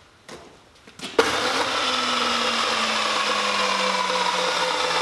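An electric motor starts abruptly about a second in, after a couple of light knocks, and runs on with a steady whirring whine, one lower tone in it slowly sagging in pitch.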